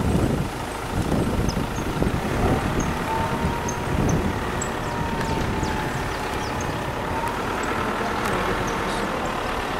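Wind blowing on the microphone, a steady rushing noise.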